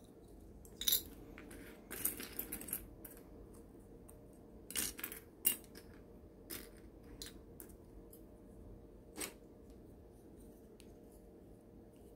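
Small hard plastic model-kit parts clicking and tapping as they are handled, pressed together in a test fit and put down among other parts. The clicks are scattered, with quick clusters about two seconds in and again around five seconds.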